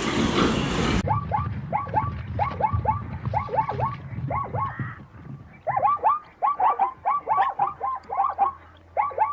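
Animal calls: a quick run of short, repeated calls, several a second, in uneven groups. They start with a sudden change of sound about a second in.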